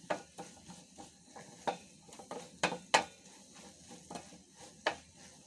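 A spoon stirring in a cooking pan of frying omena, knocking and scraping against the pan with a few sharp, irregularly spaced clicks.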